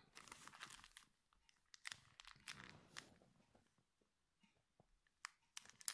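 Near silence with faint scratchy rustles and a few small clicks from the cross-stitch linen and needle being handled.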